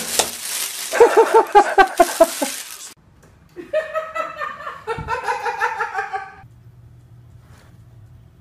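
A plastic bag rustling and crackling loudly as a cat thrashes its way out of it, followed by a person laughing in short, quick bursts.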